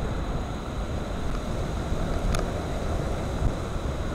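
Steady low rumble of a moving car heard from inside, with wind noise on the microphone. A faint brief click about two seconds in.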